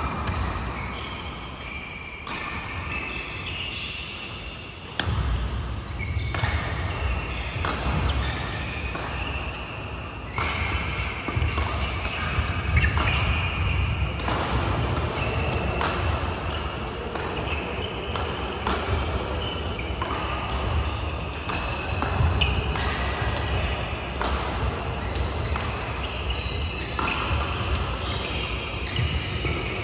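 Badminton rallies on several courts: many sharp racket strikes on shuttlecocks and players' footwork on the court mats, with the echo of a large hall.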